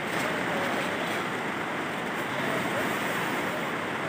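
Rain falling on the plastic-film roof of a greenhouse, a steady hiss.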